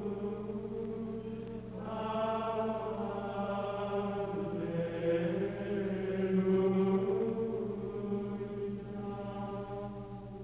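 Slow chanted singing, voices holding long drawn-out notes that change pitch every couple of seconds, fading a little near the end.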